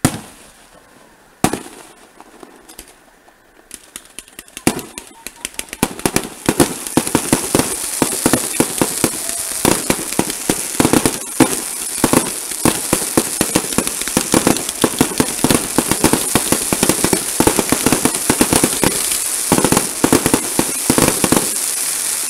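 Aerial fireworks: a loud single bang, another about a second and a half later, and a few more around five seconds in. From about six seconds in comes a dense, continuous barrage of rapid pops and crackling from many bursting shells.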